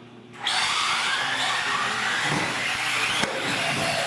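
Several radio-controlled UTV models launch off the start line together. Their motors and drivetrains whine, starting suddenly about half a second in and rising and falling in pitch as they accelerate across the concrete floor.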